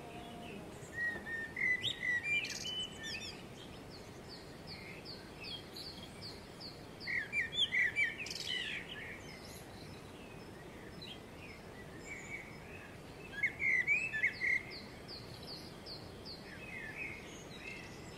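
A songbird singing three phrases about six seconds apart, each a quick run of high chirps and repeated falling notes, over the steady rush of the Metolius River's flowing water.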